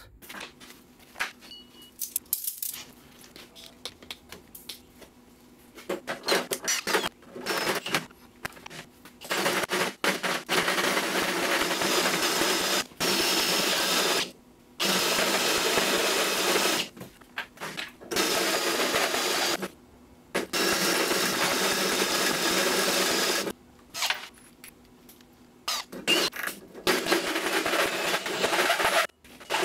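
Cordless drill boring into the end of a steel tube axle, run in repeated bursts of one to three seconds with short pauses between, opening up the bore to take a new sleeve.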